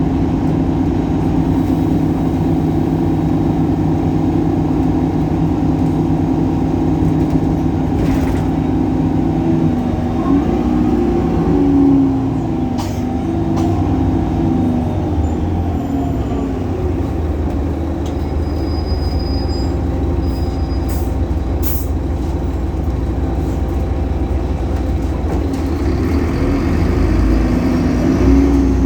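Solaris Urbino 18 articulated bus with its DAF Paccar PR265 diesel engine, heard on board: the engine runs steadily, its note falls away about twelve seconds in, it runs low and steady for a while, and it picks up again near the end.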